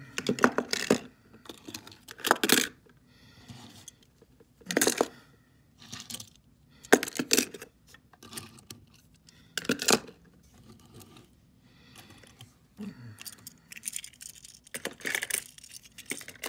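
Small die-cast metal toy trucks clattering as they are picked up, set down on a tabletop and slid into a clear plastic compartment case: short sharp clacks about every two seconds, then a busier run of them near the end.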